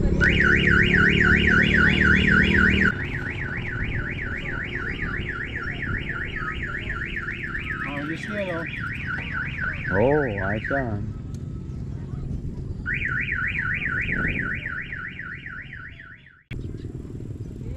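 Electronic warbling siren, its tone sweeping rapidly up and down several times a second. It stops about eleven seconds in, starts again two seconds later, and cuts off abruptly near the end.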